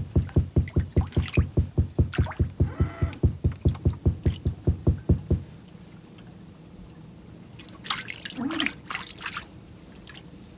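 Rapid, regular thumping, about four to five beats a second, that stops suddenly about five seconds in. Later comes a short burst of splashing, trickling water.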